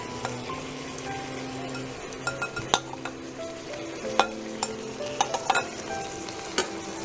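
Khoya kheer sizzling in ghee in a steel kadai as crumbly chhana-and-sugar mixture is added and stirred in. Sharp clicks of the spatula against the pan come in clusters between about two and six seconds in.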